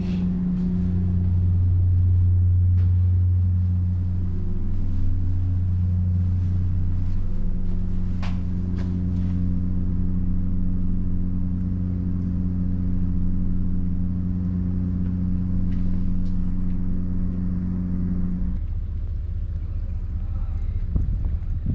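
A steady, deep machine hum with a strong low drone and a higher tone above it. Near the end it cuts to a rougher low rumble.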